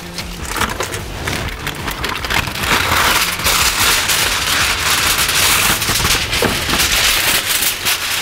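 Aluminium foil being pulled off the roll from its box and torn off, the sheet crinkling and crackling with many sharp little clicks as it is handled.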